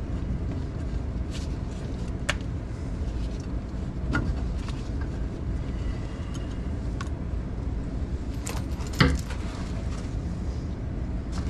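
Scattered light clicks and small rattles of hands working on an under-sink ABS plastic drain fitting, with one sharper knock about nine seconds in, over a steady low rumble.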